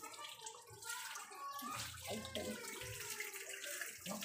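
Water running from a garden hose and splashing.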